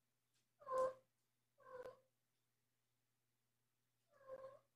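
Adult domestic cat (the mother cat) giving three short meows, the first the loudest: a mother cat calling to her kitten as she checks in on him.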